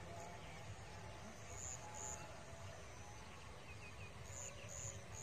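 Faint open-field ambience: a low steady rumble with a few short, high bird chirps, two about two seconds in and a quicker run of three near the end.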